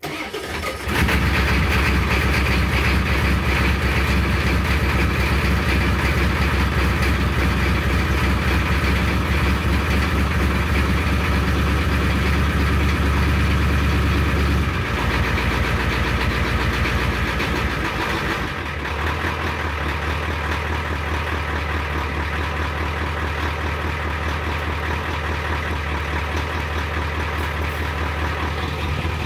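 Ford 7.3 L IDI diesel V8 cold-starting near freezing, heard at the tailpipe: it comes in suddenly, catches and gets louder about a second in, then runs steadily. Its note drops about 15 s in and changes again about 18 s in before settling into a steady idle.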